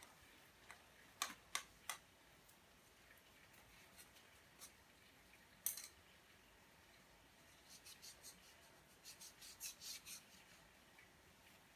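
Faint light taps and scratchy clicks of a pencil being handled and knocked against a floor. There are three in the first two seconds, one about six seconds in, and a quicker run of them between about eight and ten seconds.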